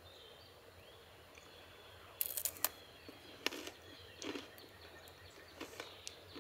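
Quiet outdoor background with faint bird chirps, broken by a few short crackles and clicks from a cracker and a foil-lidded food tray being handled and eaten, the loudest cluster about two and a half seconds in.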